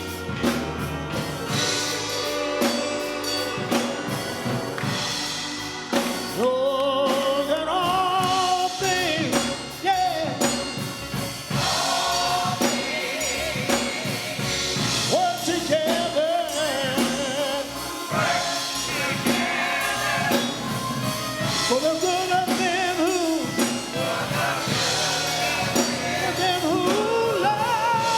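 Gospel song in a church service: singers with wavering, sustained lines over a band with drum kit.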